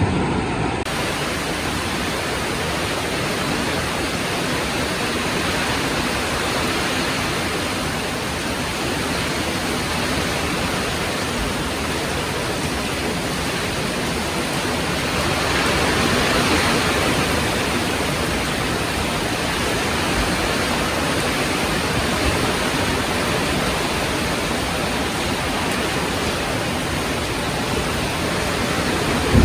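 Heavy rain falling steadily, an even hiss, growing a little louder about halfway through.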